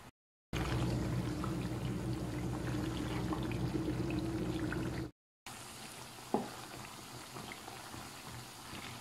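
Sliced onions frying gently in oil over low heat, still pale at an early stage of slow frying; the oil bubbles and sizzles softly as they are stirred with a slotted spoon. The sound cuts out twice for a moment; between the cuts a steady low hum sits under the bubbling, and later there are a couple of light clicks.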